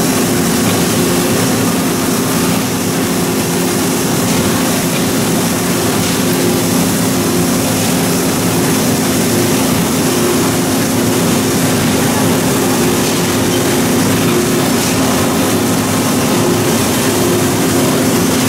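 Steady machinery noise of a bottle conveyor line running through an in-line container leak tester: an even hiss with a constant low hum.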